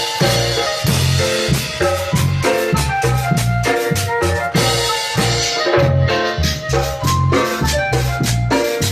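A live band playing, amplified through a PA: held electronic keyboard notes over a steady drum-kit beat of bass drum and snare hits.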